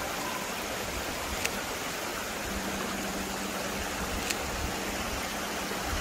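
Steady rush of a waterfall, Lumb Hole Falls, with two faint clicks about a second and a half and four seconds in.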